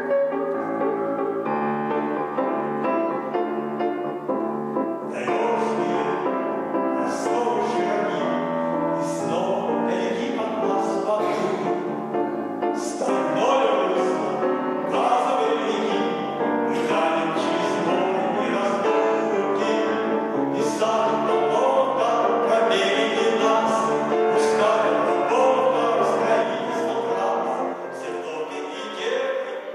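Grand piano playing a flowing instrumental passage. From about five seconds in, short, crisp high accents join it at roughly one a second.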